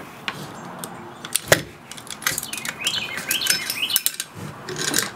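Sharp metal clicks and scrapes of an AR-15 rifle being field-stripped as its bolt carrier is drawn out of the upper receiver; the loudest click comes about a second and a half in. Birds chirp in the background through the middle.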